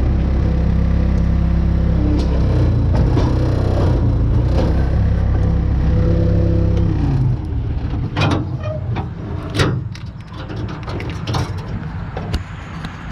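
An engine running steadily, which stops about seven seconds in; after it come several sharp knocks and clatters.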